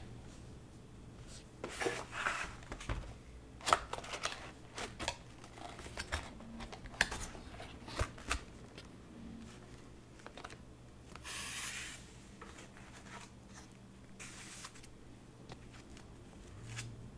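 Hands handling keyboard parts and packaging: scattered sharp clicks and taps mixed with short rustles, with a longer scraping rustle about eleven seconds in.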